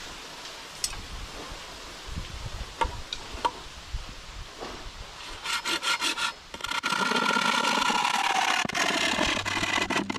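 A hand saw cutting bamboo: light scattered ticks at first, then quick back-and-forth strokes starting about five and a half seconds in. These become a louder, continuous rasp with the hollow stalk ringing.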